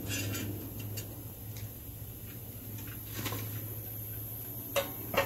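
A few scattered light metal clicks and taps from handling the crucible of molten aluminum, over a steady low hum.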